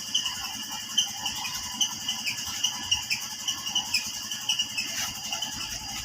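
Birds chirping and insects trilling steadily in the background, with a few light clicks, one sharper about five seconds in.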